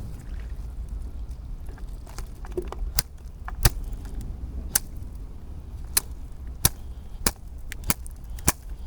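A series of sharp, irregular taps and clicks, about one every half second to a second from around three seconds in, over a low rumble.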